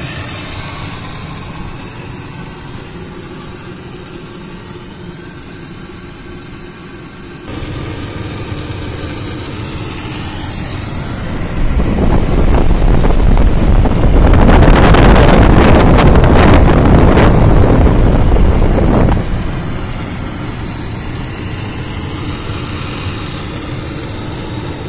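15-ton (15 TR) cooling tower running: a steady mix of fan and water noise. It grows much louder for about seven seconds in the middle, then drops back.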